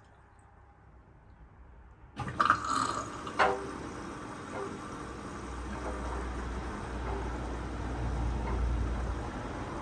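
Front-loading washing machine running, with water splashing and filling in the drum, after about two seconds of near silence. A couple of sharp knocks come soon after the sound starts, then a low steady rumble builds about halfway through.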